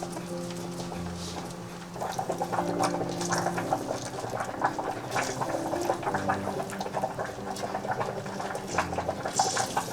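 Soft background music of held chords that change every second or two, with a scatter of small clicks and rustles from handling things starting about two seconds in.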